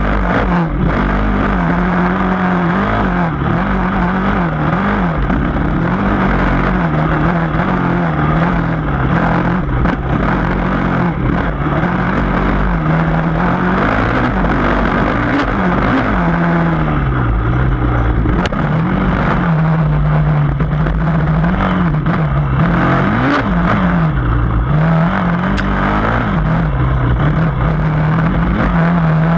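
Yamaha dirt bike engine running hard, its pitch rising and falling again and again as the throttle is opened and closed.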